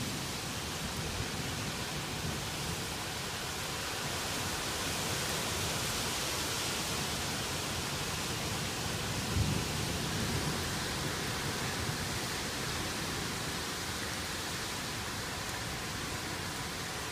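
Heavy rain falling steadily in a thunderstorm, a dense hiss that swells for a few seconds near the middle. A single brief low thump about halfway through.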